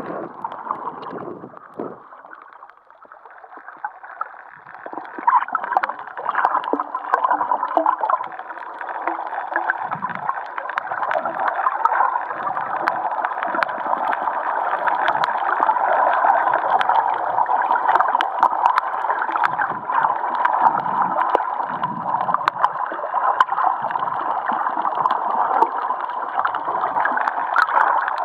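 Underwater sound through a camera's waterproof housing on a coral reef. Surface splashing at the very start, then a steady hiss with a faint steady whine, scattered sharp clicks and low gurgles every second or two.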